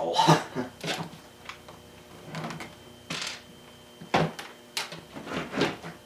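IBM Model M keyboard being shifted and set into place on a desk: irregular knocks, clatter and scrapes of its plastic case against the desk and the things around it.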